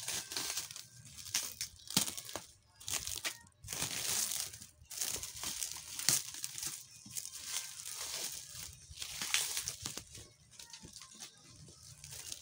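Black plastic bag wrapping crinkling and crackling in irregular bursts as hands pull it open.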